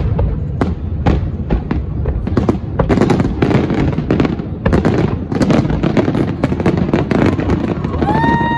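Fireworks display at full tilt: many overlapping bangs and crackles of bursting aerial shells every second, over a constant low rumble. Near the end a steady high-pitched tone comes in over the bangs.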